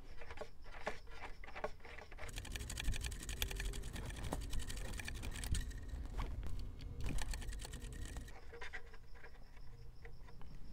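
Irregular light clicks and rubbing as fingers handle a small nylon control horn and pushrod clevis against a model plane's covered elevator. The clicks come thickest in the middle.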